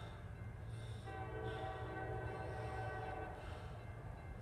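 A freight train locomotive's air horn sounds one long blast, starting about a second in and lasting about two and a half seconds. Under it is a steady low rumble from the train.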